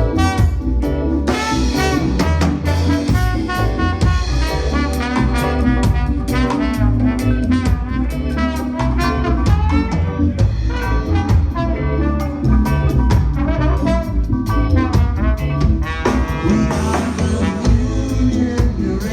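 Live band playing an instrumental passage: a horn section carries the melody over drum kit and heavy bass, as in a reggae tune.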